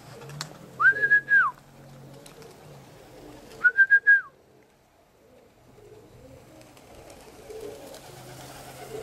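Common buzzard calling: clear high mewing whistles, one about a second in and a shorter, wavering one near the middle, with another starting at the very end.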